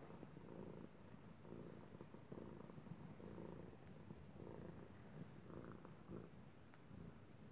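Domestic tabby cat purring faintly and steadily, swelling and easing with each breath, a little under once a second; a purr likened to a water heater.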